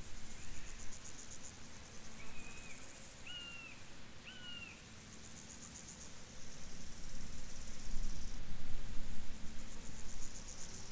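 Field insects chirping in rapid pulsed trills that come in repeated bouts. A bird calls three short whistled notes about two to four seconds in. A low rumble rises in the second half.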